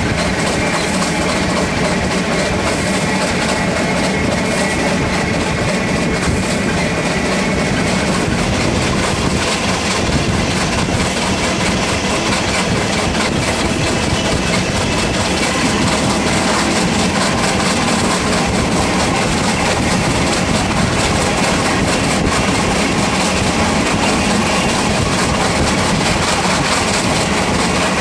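Steam locomotive A10 No. 6, built by Neilson in 1865, running along the track, heard from its tender: a steady, loud mix of the engine working and the wheels on the rails.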